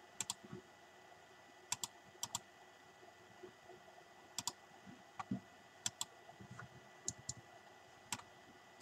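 Computer mouse and keyboard clicks: about a dozen sharp, quiet clicks, several in quick pairs like double-clicks, with a few softer taps between.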